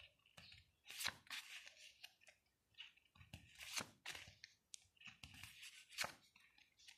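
Faint rustle of Topps football stickers being shuffled through by hand: paper sliding and rubbing against paper, with three sharp flicks as sticker sheets are pulled off the stack.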